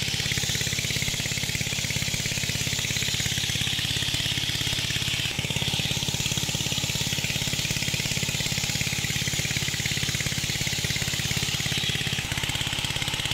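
Engine of a pond-draining water pump running steadily with a fast, even chug, a steady hiss above it.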